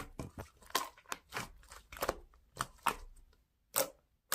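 Slime being squeezed and stretched by hand, giving a string of soft, irregular clicks and pops.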